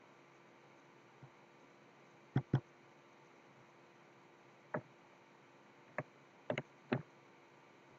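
Computer mouse double-click about two and a half seconds in, then five more sharp single clicks from the mouse and keyboard over the next few seconds, over a faint steady hiss.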